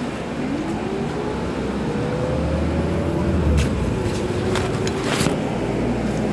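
Iveco Crossway LE CNG city bus idling at a stop, its natural-gas engine running steadily. A pitched tone over it rises slowly for about three seconds, drops, then holds level, and a few short hissing or clicking noises come between about three and a half and five and a half seconds in.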